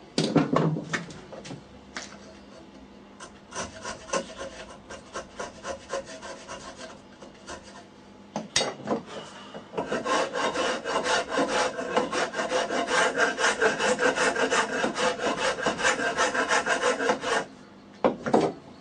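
Steel flat file scraping back and forth across a wooden part clamped in a bench vise. The strokes come sparse at first, then fast, regular and louder from about ten seconds in. A single hammer knock on the workpiece comes right at the start.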